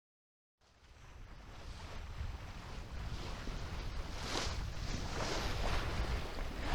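Wind buffeting the microphone with water rushing and splashing along a sailboat's hull under sail, fading in from silence and growing louder, with repeated swells of spray hiss.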